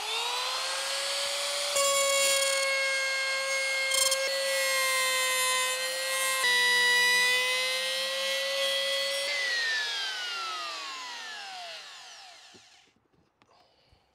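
Compact trim router cutting cedar cladding: the motor spins up with a rising whine, runs at a steady high whine while it trims the edge of a hole, then is switched off about nine seconds in and winds down with a falling pitch over a few seconds.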